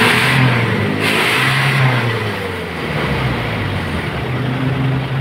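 Truck engine revved hard twice, a burst at the start and another about a second in, then settling to a steady idle hum. The revs are free-acceleration runs for a smoke-emission test.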